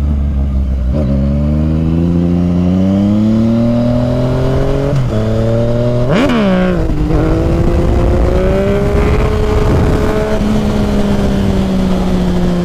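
Yamaha FZ-09's 847 cc inline-three engine accelerating from a low speed, its pitch climbing and then dropping sharply at two upshifts about five and six seconds in, then settling into a steady cruise. Wind rushes over the helmet camera throughout.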